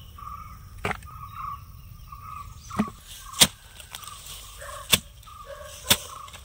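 Hoe blade chopping into soil about five times, each strike a separate sharp thud, as the tubers of Chinese potato (koorka) plants are dug up. A short chirping call repeats faintly behind.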